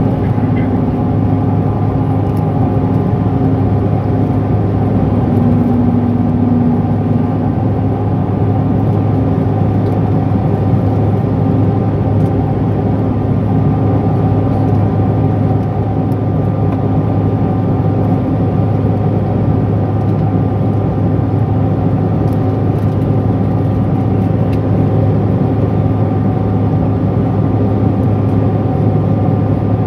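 Steady cabin drone of a Bombardier CRJ700 climbing out after takeoff: its rear-mounted General Electric CF34 turbofans and rushing air make a constant low hum with several steady tones above it.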